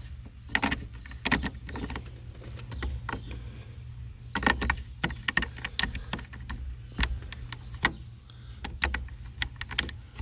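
Small metal parts clicking, scraping and rattling as an ignition lock cylinder is worked into the steering column of a 1988 Chevy C1500, with a few louder clacks, over a low steady hum.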